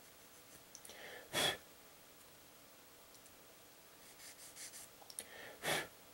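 Hand-sanding a small plastic model-kit part with 400-grit abrasive: a few short, quiet scratching strokes, and two brief louder rushes of noise about four seconds apart.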